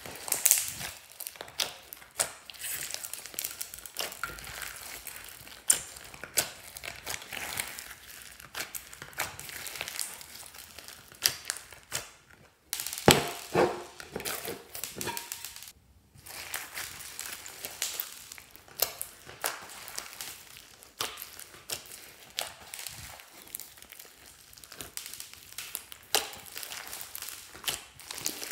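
Hands squishing and kneading a large lump of glossy slime studded with foam beads: a dense run of wet crackling and popping clicks, with two short breaks near the middle.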